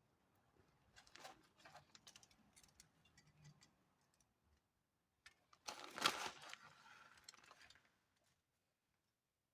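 Quiet kitchen handling sounds while topping toast: a few light clicks and taps, then about two seconds of rustling a little past the middle.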